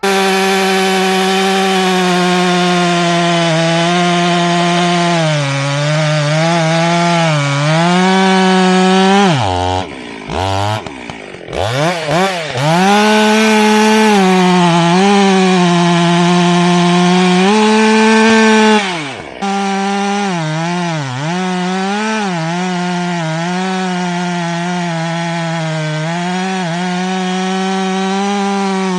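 Dolmar PS-9010 two-stroke chainsaw running at full throttle while cutting wood. The engine pitch sags again and again as the chain loads up in the cut. About ten seconds in, the revs fall sharply and climb back, and they dip once more near twenty seconds.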